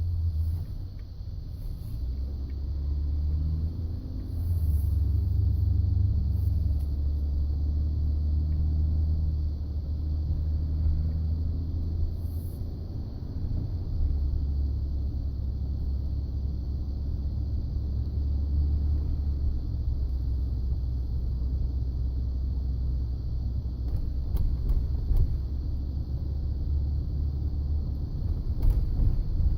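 Ford F-150 pickup running with a steady low rumble and drone that shifts in level a couple of times, with a few faint clicks near the end. It is the kind of noise the owner hears when turning or slowing, and he suspects the front drive engaging while in 2WD.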